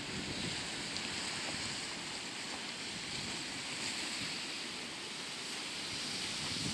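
Steady wash of small sea waves breaking over a rocky shoreline, with wind buffeting the microphone.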